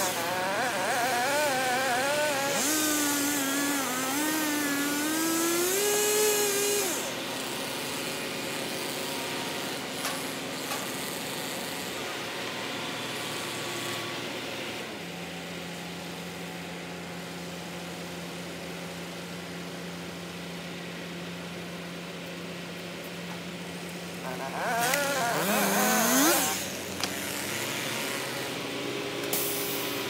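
Chainsaw running and revving up and down under load, pitch wavering, for the first seven seconds and again briefly about 25 s in, with a rising rev. In between, a steady low engine hum as a truck engine idles.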